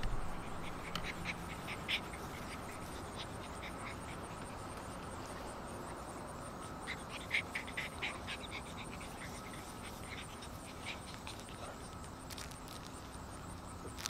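Alaskan Malamute puppies scuffling and playing on grass, with short scratchy sounds in two clusters, about a second in and again around seven to eight seconds in. A steady insect hum runs underneath.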